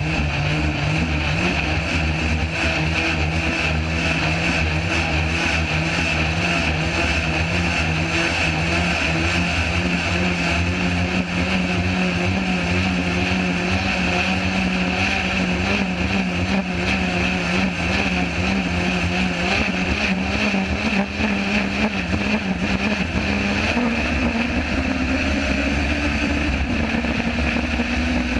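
Turbocharged Subaru engine of a sand rail running under steady throttle at speed on sand. The engine note rises somewhat in pitch near the end.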